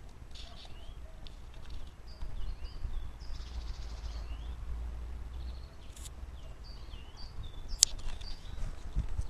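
Songbirds chirping, many short quick calls one after another, over a low steady rumble; a single sharp click near the end.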